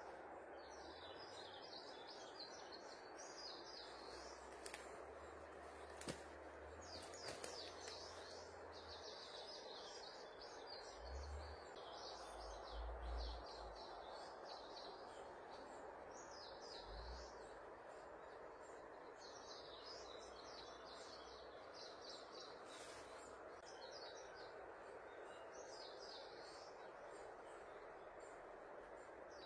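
Birds chirping again and again over a faint, steady background hiss, with a few low thumps.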